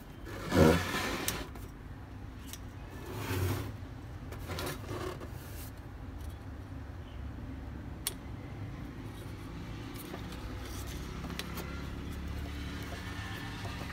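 Handling noises as battery-charger leads are picked up and moved across a wooden bench: a loud brief scrape or knock about a second in, lighter knocks and rustles, and a sharp click. A low steady rumble runs underneath and grows louder in the second half.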